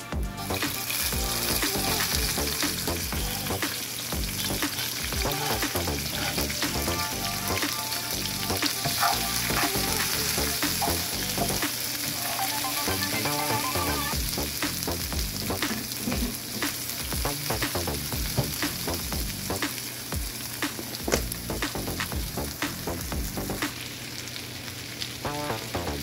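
Garlic, red bell pepper strips and shallots sizzling in hot oil in a cast iron skillet, with a steady hiss. A spatula stirs them, scraping and clicking against the pan again and again.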